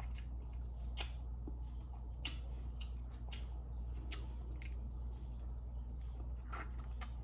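Chewing close to the microphone: soft, irregular wet clicks and squishes of food in the mouth, over a low steady hum.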